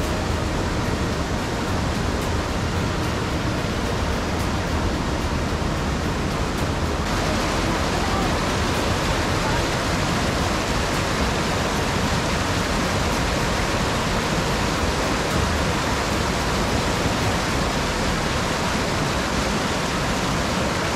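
Rushing river water, a steady hiss of whitewater pouring over and between boulders, getting brighter about seven seconds in.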